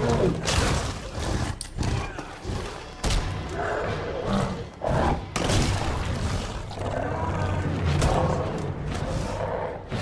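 Fight-scene sound effects from a brawl between a man and the Minotaur: a run of heavy thuds and impacts, with strained vocal grunts between the blows.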